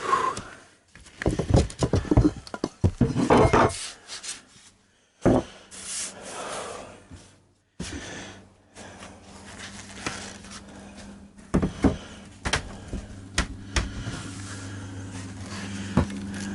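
Irregular knocks, clicks and rubbing from particle-board panels being handled and worked into place, with short pauses between. A low steady hum comes in about halfway through and grows louder.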